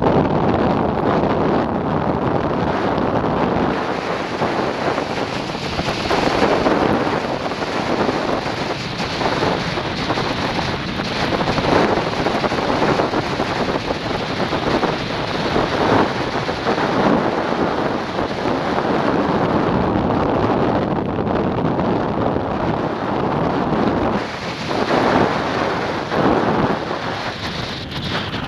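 Airflow buffeting the microphone of a wing-mounted camera on a hang glider in flight: a steady rushing wind noise that swells and eases in gusts as the glider descends.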